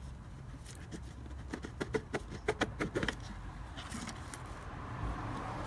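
Cardboard box of an LED headlight bulb kit being opened by gloved hands: a quick run of light clicks and taps in the middle, over a steady low rumble.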